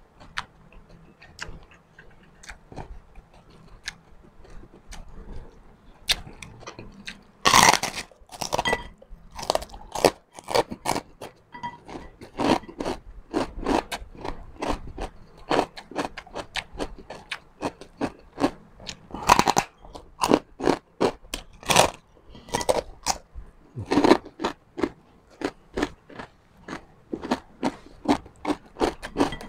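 Person chewing crispy fried pork chicharon: loud crunching bites, the biggest about 7 s, 19 s and 24 s in, with rapid crunchy chewing between. The first few seconds hold only light clicks.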